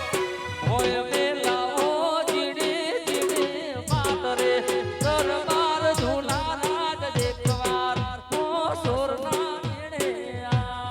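Gujarati folk raas music played live through a sound system: a wavering, ornamented melody over a steady, driving drum beat.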